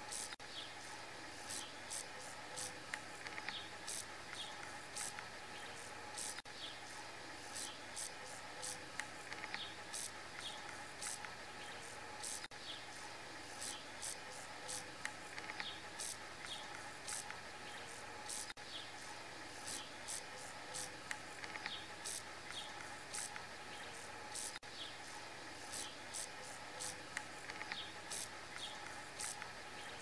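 Grasshopper chirping: short, sharp, high-pitched strokes repeating unevenly, about two a second, over faint steady insect hum.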